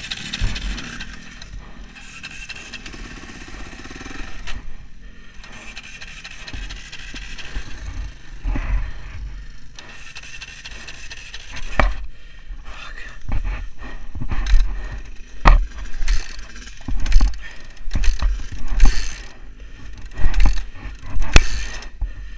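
Knocks, thumps and scrapes from handling a stalled dirt bike, coming about once a second in the second half; no engine is running. The bike has died in the race, likely from a fuel problem.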